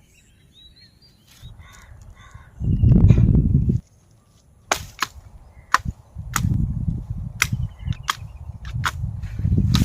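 A run of sharp cracks or knocks, about two a second, starting around halfway through, over low rumbling handling noise. Faint bird chirps come in the first two seconds.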